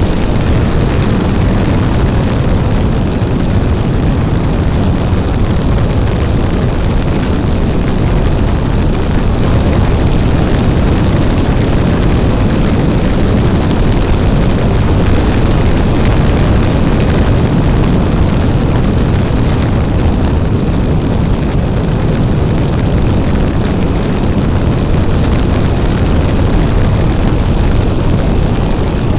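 Steady drone of a 1943 Taylorcraft L-2B in level flight: its 65 hp Continental four-cylinder engine and propeller running at cruise, mixed with airflow rushing over a camera mounted on the wing strut. The sound holds even throughout.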